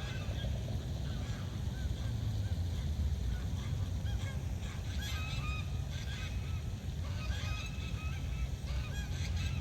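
Birds calling outdoors in a string of short, arched calls that come more thickly in the second half, over a steady low rumble.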